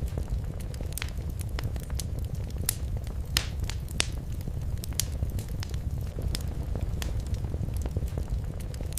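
Wood fire crackling in a fireplace: a steady low rumble of the flames with frequent sharp, irregular pops and snaps.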